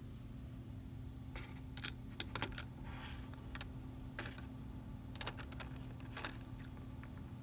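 Light clicks and clinks of tiny plastic and metal dollhouse dishes and utensils in a miniature plastic dish rack, handled with metal tweezers: a dozen or so short, separate taps, bunched from about a second and a half to six and a half seconds in.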